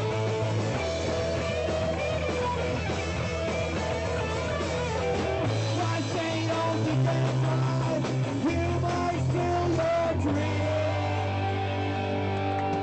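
Punk rock band playing live: electric guitar and bass chords over drums, with a voice singing along.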